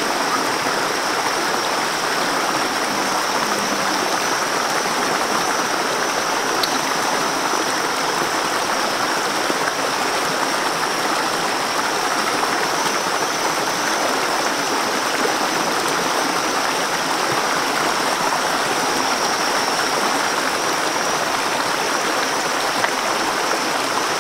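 Shallow rocky stream rushing steadily over stones and small cascades.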